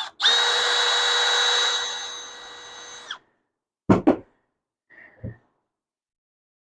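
Milwaukee M12 Fuel cordless drill running steadily for about three seconds, drilling out a screw hole in cedar. Its whine drops to a quieter level halfway through and stops abruptly. Two sharp knocks and a softer thump follow.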